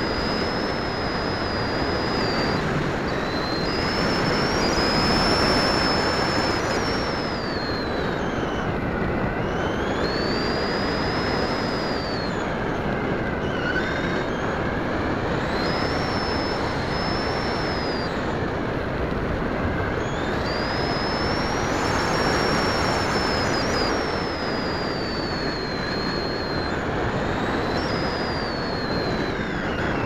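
Electric motor and pusher propeller of a radio-controlled model plane in flight, heard from a camera on the airframe. A high whine rises and falls in pitch every few seconds over a heavy rush of wind across the microphone.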